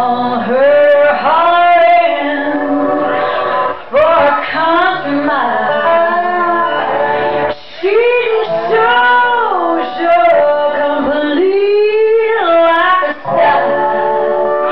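A song with a woman singing a melody over instrumental accompaniment, her notes held and bending in pitch, with short breaks between phrases.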